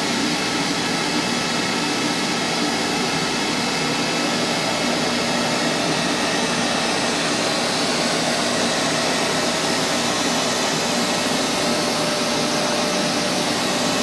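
Neato XV21 Pet & Allergy robotic vacuum running with a steady, unbroken hum of its suction motor and brush as it begins its cleaning run.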